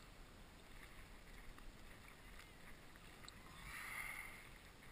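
Near silence: faint background hiss on the water with a few tiny clicks, and a brief soft rustle about four seconds in.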